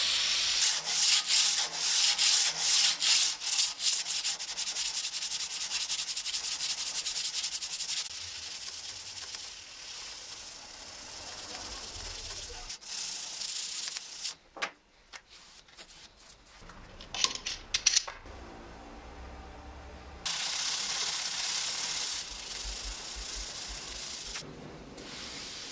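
Aerosol spray hissing onto a rusty steel hand-saw blade, followed by strokes of hand sanding and rubbing on the blade to strip the rust. A few sharp clicks come about two-thirds of the way through.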